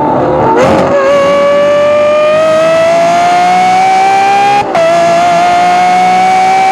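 Lamborghini Aventador SVJ's V12 with a Gintani exhaust, heard right at the exhaust outlet, accelerating hard: the engine note climbs steadily in pitch, drops sharply at an upshift about four and a half seconds in, then climbs again.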